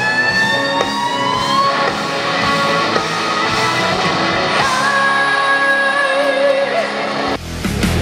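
Live band music: singing with electric guitar and band, with long held notes, one sliding upward in the first two seconds and one wavering in vibrato later on. Just before the end it cuts abruptly to louder, heavier rock music.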